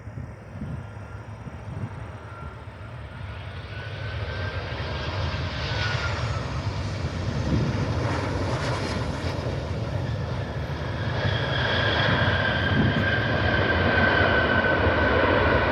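Jet airliner on landing approach, its engine noise growing steadily louder as it comes closer. A high engine whine joins the rumble over the last few seconds.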